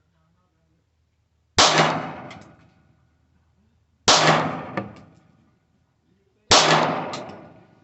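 Three shots from a 9mm Glock 19 pistol, about two and a half seconds apart, the first about a second and a half in, each ringing out for about a second.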